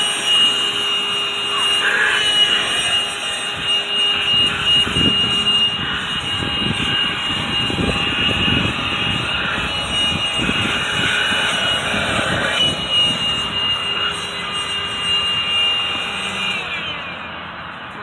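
MATCC 12 V 110 W corded handheld car vacuum cleaner running with a steady high whine, its suction sound shifting as the crevice nozzle is worked over the fabric seat. It switches off about a second before the end, the whine falling away.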